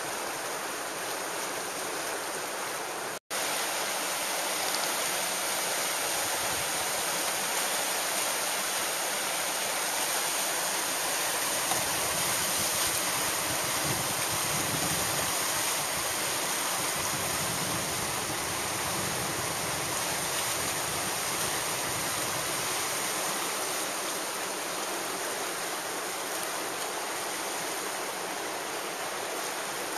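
Steady rush of whitewater from a fast river rapid. It breaks off for an instant about three seconds in and resumes unchanged.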